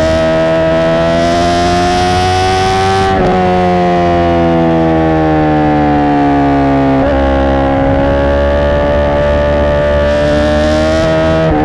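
2017 Honda CBR1000RR Fireblade's inline-four engine running through a Racefit exhaust while riding. The note climbs slowly, breaks about three seconds in, then sinks gradually until another break about seven seconds in, and holds fairly steady after that.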